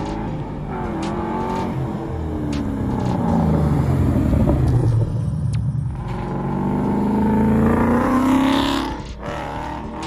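Manual-transmission Ford Mustang driven hard around a parking lot, its engine revving up and down. The revs fall away in the middle, climb again to their loudest, then cut back sharply near the end.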